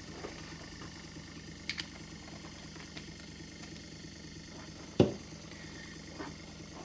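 The small electric motor of a desktop leather edge burnishing machine running steadily, with a couple of light clicks and one sharp knock about five seconds in.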